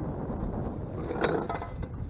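Wind rumbling over the microphone on a small boat on open water, with one short sharp sound about a second and a quarter in.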